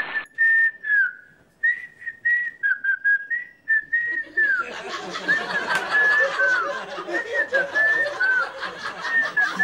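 A whistled tune, a bright single-note melody in short phrases with small gaps and downward slides. About halfway through a fuller, busier backing joins underneath while the whistling carries on.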